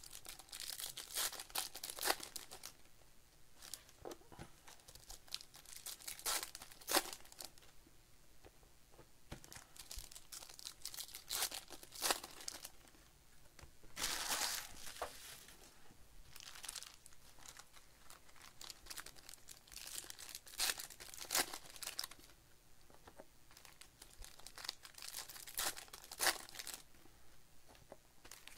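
2024 Bowman Baseball trading-card pack wrappers being torn open and crinkled by hand, in irregular bursts.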